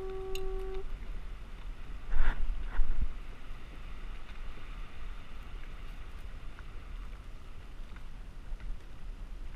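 Wind rumbling on the microphone over an open-air hiss, with a short, steady pitched beep in the first second and two loud knocks about two and three seconds in.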